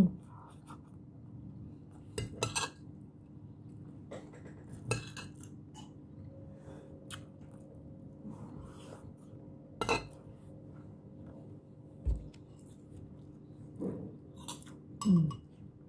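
Metal spoon clinking and scraping against a ceramic plate and soup bowl while eating, scattered sharp clinks a few seconds apart.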